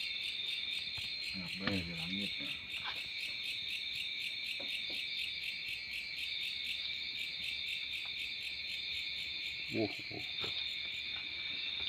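Crickets chirping at night, a steady rapid pulsing trill. Faint distant voices come in briefly about two seconds in and again near the end.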